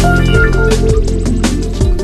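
Background music with a steady beat: drums under sustained instrumental notes.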